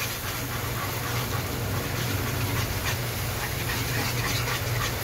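Silicone whisk beating a thick butter-and-flour roux in a non-stick frying pan as milk is poured in, scraping and slapping against the pan in rhythmic strokes, a few a second, over a steady low hum.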